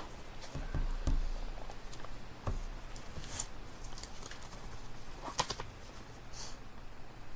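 Library ambience: scattered small knocks, clicks and rustles of people moving and handling things, over a steady low hum, with a soft low thud about a second in.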